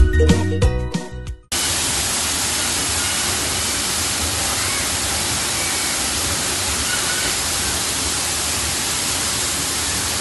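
Upbeat music fades out, then about a second and a half in the sound cuts to the steady rush of a tall waterfall falling into a pool.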